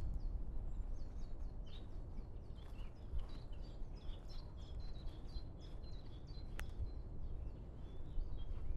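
Songbirds chirping, runs of short high notes throughout, over a steady low rumble. A single sharp click about two-thirds of the way in.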